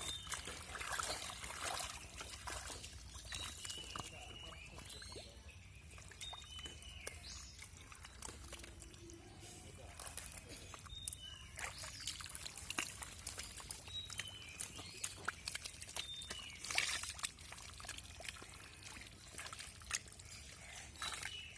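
Hands squelching and slopping through thick, wet pond mud: irregular wet sucking and splashing sounds as the mud is groped through for fish.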